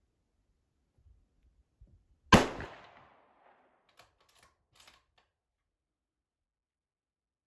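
A Tannerite binary exploding target detonating: one sharp, very loud blast about two seconds in that dies away over about a second, followed by a few faint ticks.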